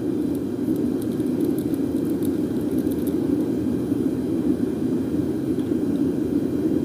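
A steady, low-pitched droning background noise with no change in pitch or level, with a few faint light crackles in the first three seconds.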